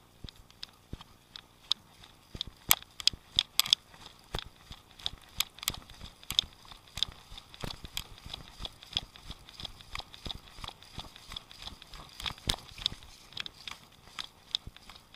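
Footsteps of someone walking on dry ground: an uneven run of sharp steps and clicks, several a second, loudest a few seconds in and again about twelve seconds in.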